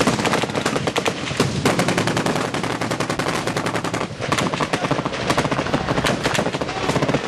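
Heavy automatic gunfire in a firefight: dense, overlapping rifle and machine-gun shots, with a brief lull about four seconds in followed by a long, rapid, evenly spaced machine-gun burst.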